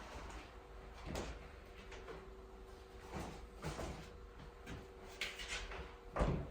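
Kitchen work sounds: a series of separate knocks and thuds as things are handled, the loudest near the end, over a faint steady hum.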